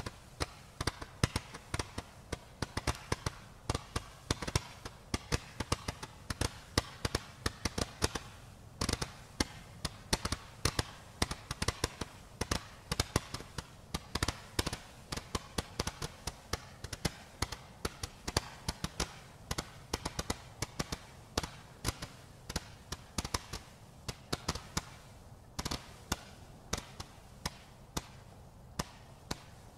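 A 175-shot multi-colour roman candle firework firing its stars in a rapid string of sharp pops, several a second, that thin out to scattered single shots near the end.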